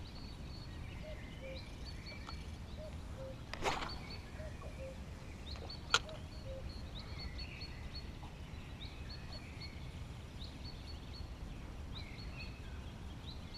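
Small birds chirping and singing again and again over a low, steady background noise. About three and a half seconds in comes the quick swish of a spinning rod being cast, and about six seconds in a single sharp click.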